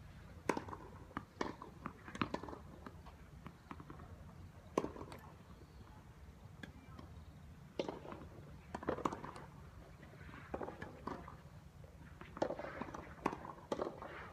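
Tennis balls struck by rackets and bouncing on the court during a ball-feeding drill: a series of sharp pops at irregular intervals, some coming in quick pairs.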